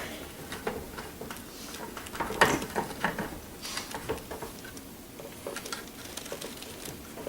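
Picture frame being handled and fitted over a watercolour painting on paper: scattered light knocks, taps and rustles, the loudest knocks about two and a half and three seconds in.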